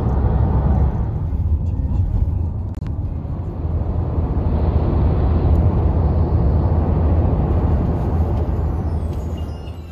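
Steady low rumble of road and wind noise from a moving car, heard from inside the cabin. It fades away near the end.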